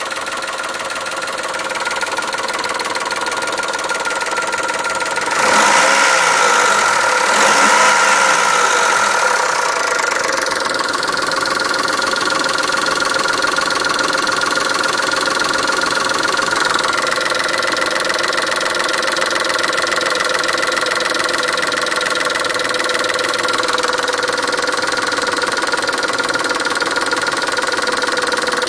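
Chrysler Stratus/Cirrus engine running and being revved, with an abnormal noise that appeared after a timing belt replacement. It gets louder about five seconds in, stays up for a few seconds, then falls back to a steady run.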